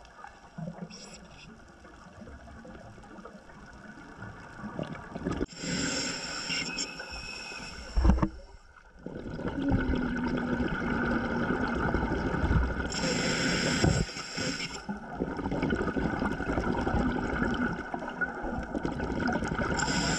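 Scuba breathing underwater: three long regulator inhalation hisses about seven seconds apart, with bubbling exhalations between them. A single sharp knock comes about eight seconds in.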